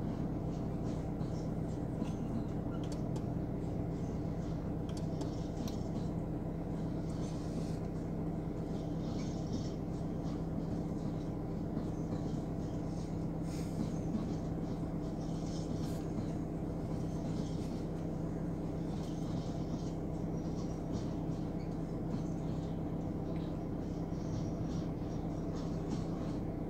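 Long container freight train rolling steadily past a level crossing, heard from inside a car's cabin: an even rumble and hum with faint, irregular clicking.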